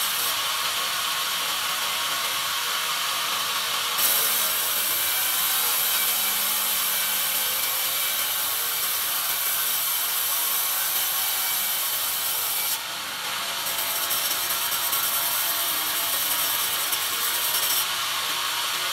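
Band saw sawmill slicing a pine cant on its log carriage: the running blade makes a steady high hiss as it cuts through the wood. The hiss grows brighter about four seconds in, dips briefly about two-thirds of the way through, then comes back until shortly before the end.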